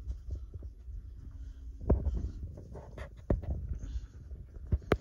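Handling noise from a phone camera being moved about: a low rumbling thud with several sharp knocks and thumps, the loudest about two seconds in and two close together near the end.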